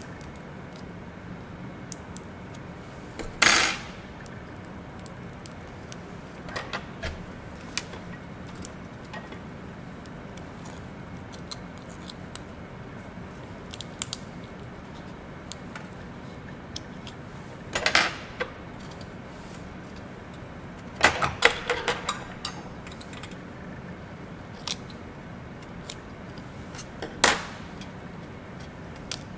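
Fine metal dissecting scissors and forceps snipping and clicking as a crayfish's carapace is cut away: a few short, sharp snips spread out, with a quick run of them about 21 seconds in.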